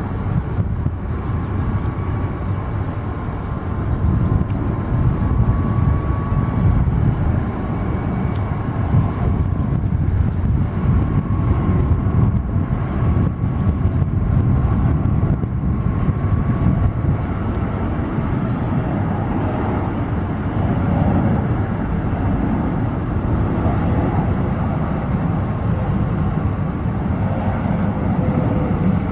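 Jet engines of a Boeing 777 freighter on final approach with gear down: a steady low rumble with a faint engine whine. The whine drifts slightly lower in pitch over the last ten seconds.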